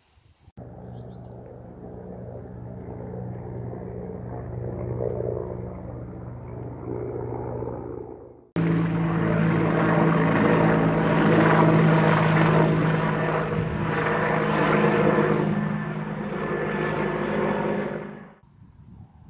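Helicopter flying overhead, a steady drone of its rotor and engine with an even hum. About eight seconds in, the sound jumps abruptly to a louder stretch of the same drone, which cuts off suddenly near the end.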